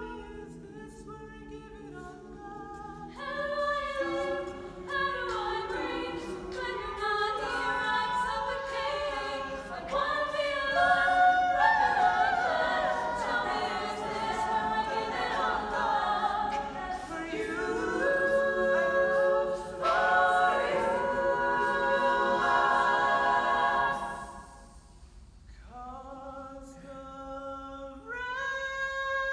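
Mixed chamber choir singing a cappella in several parts. It starts soft, swells a few seconds in and stays full through the middle, then drops to a quiet passage a few seconds before the end and builds again.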